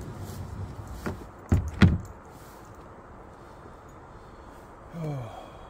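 Three knocks about a second apart, the last two heavy thumps, as gear bumps the kayak, followed by a steady soft hiss.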